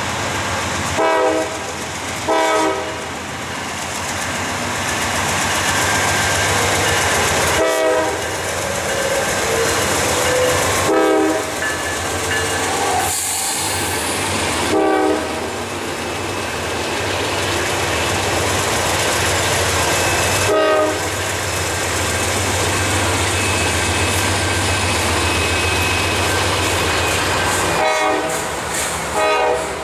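Eastbound Norfolk Southern intermodal train passing close by: its lead diesel locomotives (GE D9-40CW units and an EMD SD70M-2) run past with a steady low drone, then double-stack container cars roll by with wheels clicking on the rails. Short horn blasts of about half a second each sound again and again at irregular intervals.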